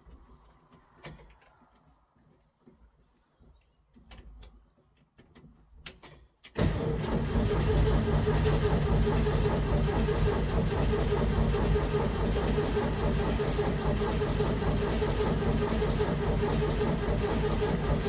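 An old car's starter cranking the engine, which turns over steadily without catching. The engine fails to start, a fault the owner puts down to the carburettor. A few faint clicks and knocks come first, then the cranking starts abruptly about six and a half seconds in.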